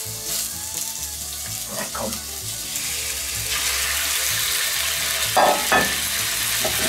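Strips of Black Angus beef sizzling in hot oil in a cast-iron Dutch oven over charcoal as they go in. The sizzle grows louder about halfway through as the rest of the meat is tipped in from a bowl, with a couple of knocks near the end.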